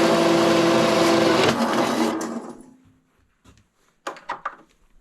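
Metal-cutting bandsaw running loud and steady with a constant hum, then switched off about one and a half seconds in and winding down to a stop. A few light clicks and knocks follow near the end.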